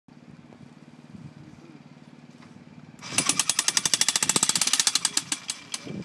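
Electric jackhammer, its bit modified to accept pipe, hammering a steel pipe fence post into the ground: a rapid run of blows that starts about halfway in, then slows and stops just before the end. A low steady hum is heard before the hammering starts.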